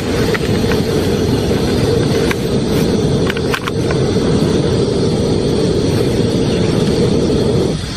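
Small gas canister camp stove burner running with a steady low roar under a pan of water. Its level drops suddenly near the end. A few crinkles from a foil sachet come about halfway through as cocoa powder is poured in.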